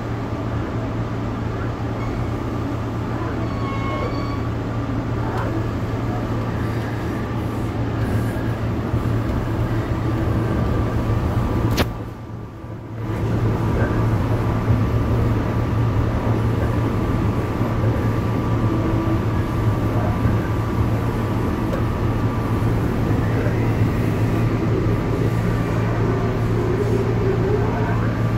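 Cabin noise of a moving UP Express diesel multiple-unit train: a steady running rumble with a low, even hum. About twelve seconds in there is a sharp click and the sound drops for about a second before resuming.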